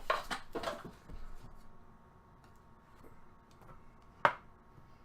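Hands handling trading cards and their packaging: a few quick clicks and rustles, then faint handling, and one sharp click about four seconds in.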